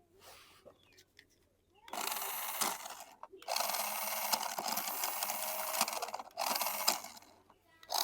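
A toy's small electric motor and plastic gears whirring in runs, starting about two seconds in and cutting out and starting again twice.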